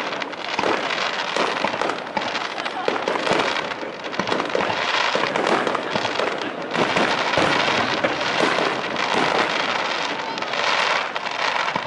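Aerial firework shells bursting one after another, their bangs and crackle running together without a pause.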